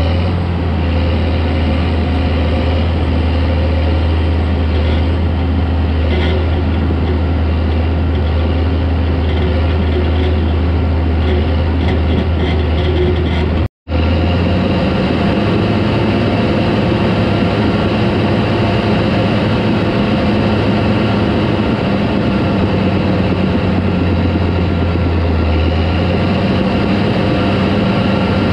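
Caterpillar D4 crawler tractor's diesel engine running steadily at working speed, with the steel tracks and blade working earth. It cuts off for an instant about halfway, and the engine note shifts slightly afterwards.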